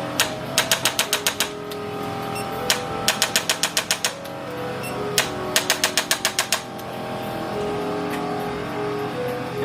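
Chiropractic adjuster gun firing rapid trains of sharp clicks, about seven a second, in three runs of roughly a second each, each run led by a single click. Background music plays throughout.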